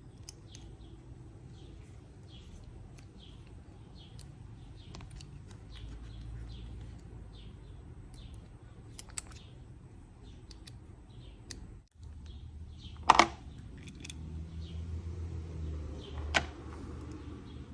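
Sharp clicks and taps from handling a Shimano Deore rear derailleur while its clutch mechanism is checked. The loudest clicks come about 13 seconds in and again near 16 seconds. Birds chirp steadily throughout, about twice a second.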